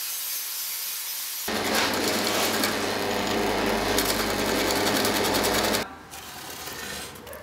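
Drill press running with a twist bit boring into a charred-wood block, a steady machine noise with a low motor hum that starts about a second and a half in and cuts off suddenly near six seconds.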